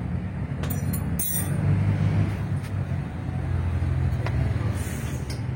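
Mitsubishi Strada's diesel engine idling steadily, with a few light clicks over it. The truck starts hard with long cranking, and the mechanics suspect the injection timing is off.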